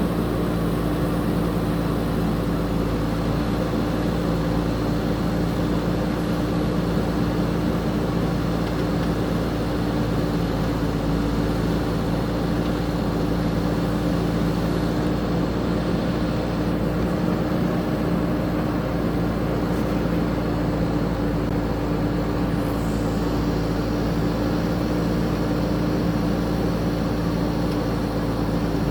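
Diesel engine of a JCB 3DX backhoe loader running steadily at a constant speed.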